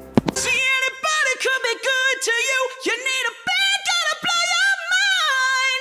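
A high-pitched solo singing voice, unaccompanied, holding wavering notes and sliding through quick melodic runs. A couple of sharp knocks come right at the start.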